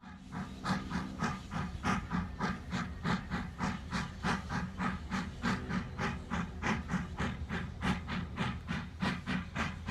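Steam-train chugging, about three chuffs a second, over a steady low hum.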